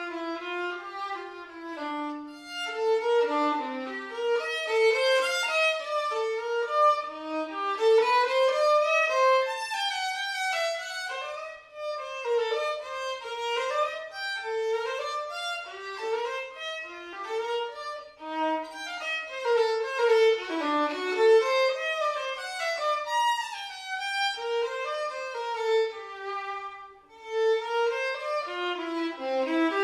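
Solo violin playing an unaccompanied melody with quick runs of notes, pausing briefly a few times.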